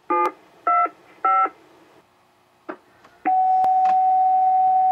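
Railroad radio tones: three short touch-tone-style beeps, then one long steady beep of about two seconds, ahead of a voice transmission.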